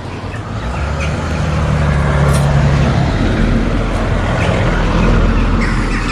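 A motor vehicle driving past close by, its engine hum and road noise swelling over the first couple of seconds and easing off near the end.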